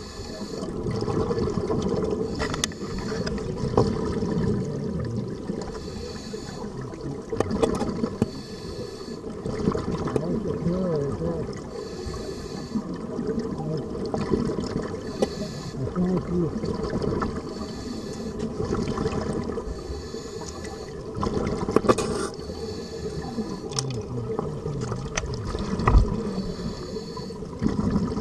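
Scuba regulator breathing heard underwater, with a burst of exhaled bubbles about every three seconds over a steady low wash of water noise.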